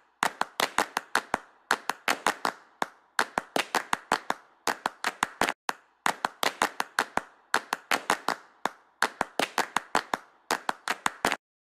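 Sharp hand claps in a quick, even rhythm, played as a backing track in runs of several claps with short breaks between; it stops abruptly near the end.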